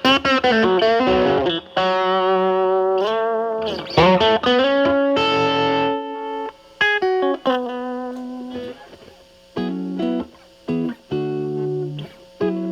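Telecaster through a Fender Pugilist distortion pedal set to a high Gain B, into a Marshall Valvestate's clean channel, playing distorted lead phrases with bent and wavering sustained notes. About seven seconds in the tone cleans up, with the guitar's volume rolled back, and shorter, separated notes ring out.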